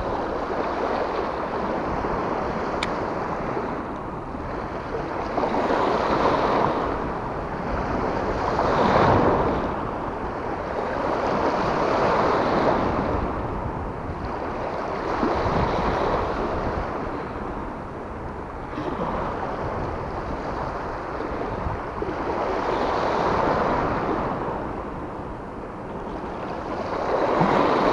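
Small sea waves washing against a rocky shore, swelling and fading about every three to four seconds, with wind on the microphone.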